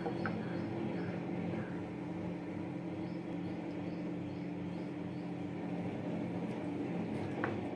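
A steady low mechanical hum, like a small motor or appliance running, with a couple of faint clicks.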